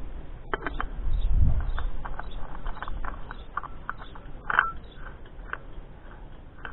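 Light clicks and scrapes from a new oil filter being screwed by hand onto a motorcycle engine, with small birds chirping in the background. A brief low rumble comes about a second in.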